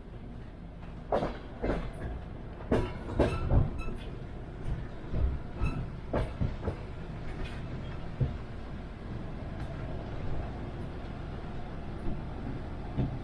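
Passenger train wheels clattering over the rails: a steady low rumble with scattered sharp clicks and knocks. The clicks come thickest in the first few seconds and grow sparse in the second half.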